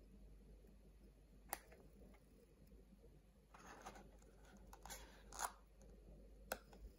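Faint handling noise from a MoonSwatch watch and its box: a few sharp clicks, one about a second and a half in and another near the end, with short bursts of rustling in between.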